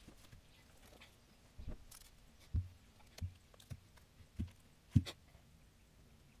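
A run of about six dull, low thuds over a few seconds, the loudest near the end, as vegetables such as a pumpkin and onions are set down on a cloth-covered table.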